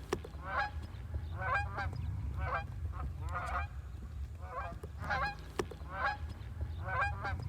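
A flock of geese honking over and over, short calls coming about once or twice a second, over a steady low rumble.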